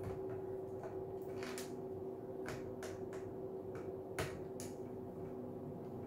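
Screwdriver turning out the small screws that hold the ballast box to the metal back plate of an LED ceiling light: a few irregular light clicks and scrapes of the bit in the screw heads.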